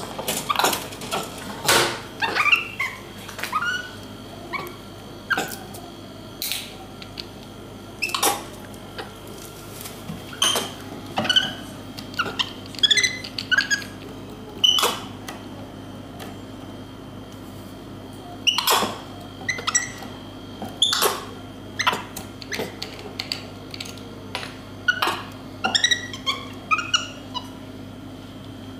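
Capuchin monkey giving many short, high chirps and squeaks, scattered irregularly, mixed with sharp clicks and knocks from a plastic juice bottle and its screw cap being handled.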